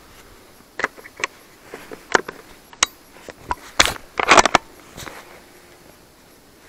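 Handling noise from a jammed bolt-action .450 Bushmaster rifle: a series of sharp clicks and knocks as gloved hands work the action, with the loudest, densest cluster about four seconds in as a glove rubs close against the microphone.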